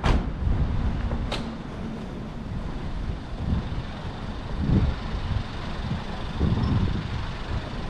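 Wind buffeting the microphone in irregular low gusts over a faint street rumble, with two brief sharp swishes in the first second and a half.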